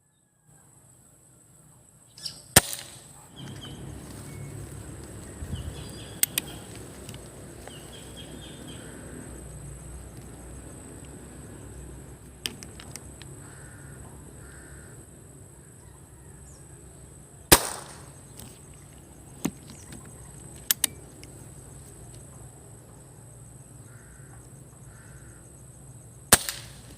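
Three sharp shots from a PCP air rifle, the first about three seconds in, one past the middle and one near the end, with quieter clicks between them. Birds give short paired calls in the background, and a steady high-pitched hum runs under everything.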